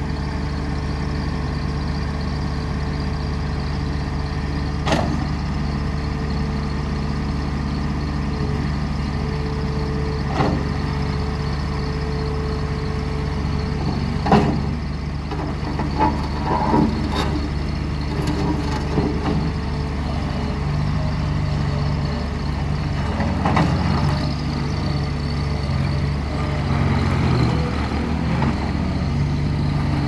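Bobcat S70 skid steer's small three-cylinder diesel engine running steadily as the loader drives and turns on gravel, its pitch shifting up and down in the last third. A few sharp clanks come through now and then.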